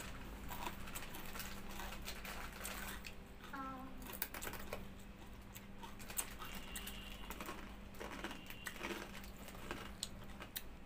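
Close eating sounds: quick, irregular crunches and mouth clicks of chewing, with a brief voiced hum about three and a half seconds in.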